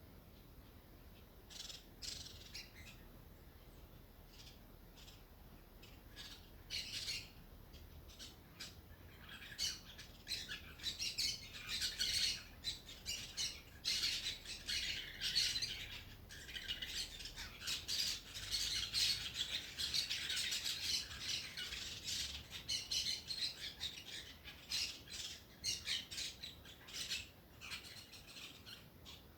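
Small birds chirping: a run of short, high calls that thickens into a busy, overlapping chatter through the middle and thins out again toward the end.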